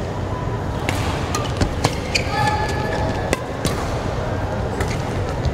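Badminton rackets striking shuttlecocks: sharp, irregular hits, with brief shoe squeaks on the court floor about two seconds in, over the steady din of a busy sports hall with voices.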